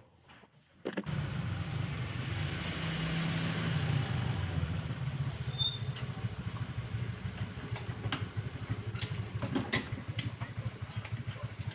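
Motor scooter engines running steadily, coming in abruptly about a second in, with a few light clicks near the end.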